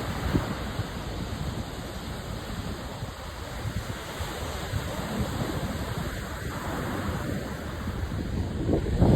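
Ocean surf washing ashore, with wind buffeting the microphone in low rumbles. It swells louder near the end as a wave comes in.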